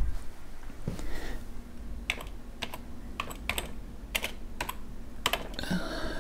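Typing on a computer keyboard: about a dozen separate keystrokes at an uneven pace, entering a Terminal command.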